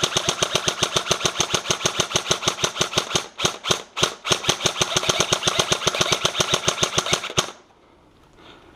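Airsoft automatic gun firing long full-auto bursts, roughly a dozen evenly spaced shots a second, broken by two short pauses a little past three seconds in and stopping about seven and a half seconds in.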